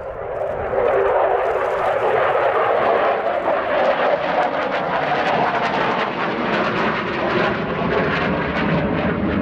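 Sukhoi Su-27's twin AL-31F turbofan engines as the jet flies past: the jet noise swells over the first second, then holds loud and steady with a rough crackle.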